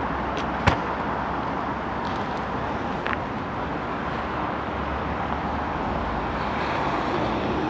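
Class 444 electric multiple unit running slowly into the platform: a steady rumble and hiss of the moving train, with one sharp click under a second in.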